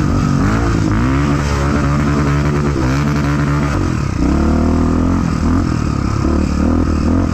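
Trail motorcycle engine accelerating hard: the pitch climbs for a few seconds, drops sharply about four seconds in as it shifts up a gear, then climbs again.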